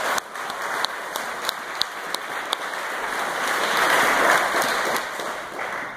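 Audience applauding, swelling to its loudest about four seconds in and dropping away near the end.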